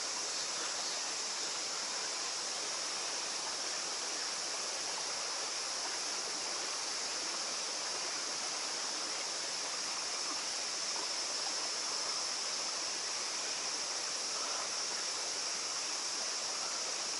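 Steady rush of water from a small waterfall running down the rock into a pool, an even hiss that does not change.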